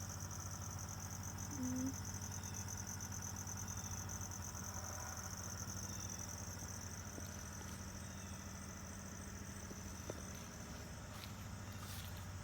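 Steady, pulsing high-pitched trilling of insects in the backyard, with a steady low hum beneath it. A brief squeak comes just before two seconds in.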